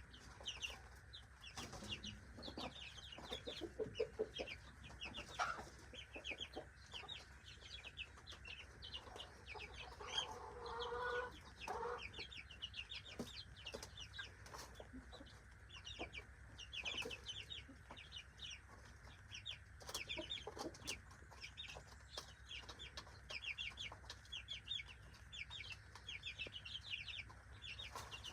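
A flock of young backyard chickens cheeping and clucking over their feed, in a steady stream of short high peeps. A lower, fuller call sounds about ten seconds in.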